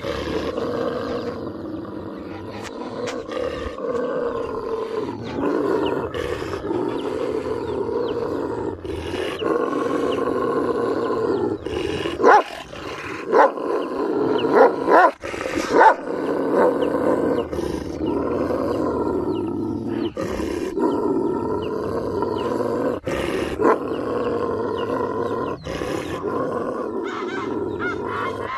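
Two Kangal shepherd dogs growling and snarling at each other in a deep, continuous growl, with a handful of short, loud outbursts about halfway through.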